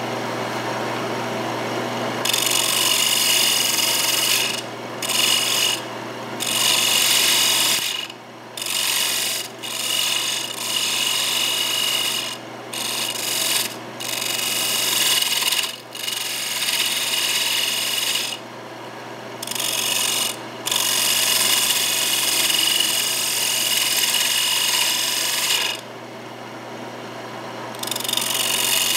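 Wood lathe running with a steady hum while a turning tool cuts the outside of a spinning rectangular mahogany bowl blank. The rough scraping of the cut starts about two seconds in and breaks off and resumes many times as the tool is lifted and pressed back in.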